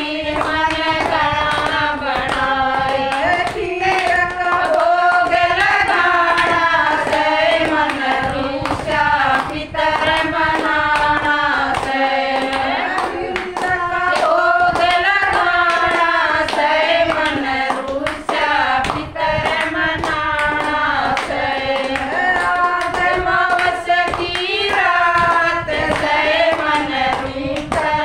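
Women singing a Hindi devotional bhajan, with hand claps keeping time throughout.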